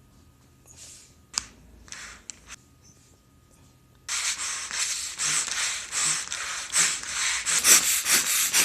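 Rapid, uneven rubbing or scraping noise close to the microphone, starting suddenly about four seconds in and pulsing two to three times a second, after a sharp click and a few faint noises.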